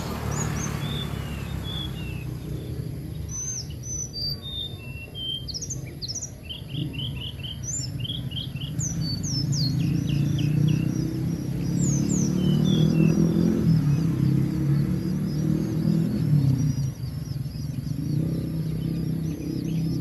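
Birds chirping at a long-tailed shrike's nest while the parent feeds its nestlings. Scattered short, high chirps and twitters give way about halfway through to a rapid, continuous twittering. A low steady hum runs underneath throughout.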